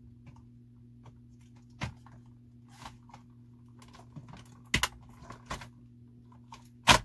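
Plastic clacks and knocks from a Dyson Ball Animal 2 upright vacuum as its wand is forced down into the back of the machine. The wand will not seat easily. There are a handful of scattered sharp clacks, and the loudest comes just before the end.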